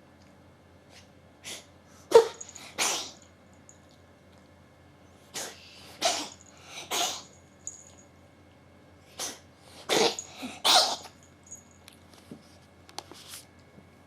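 A cat sneezing repeatedly in three quick bouts of about three sneezes each, roughly four seconds apart, then a few fainter sneezes near the end. The sneezes sound odd, which the owner takes for something having got into its nose.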